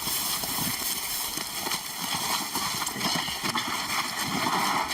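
Irregular scuffing and knocking of several people's footsteps and handling as a team carries a sedated lion.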